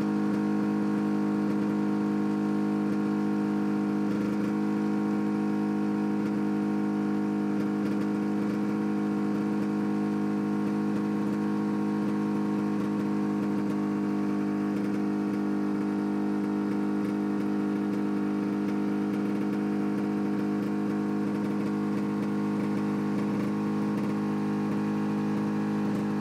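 Snowmobile engine idling steadily, an even drone that holds one pitch without revving.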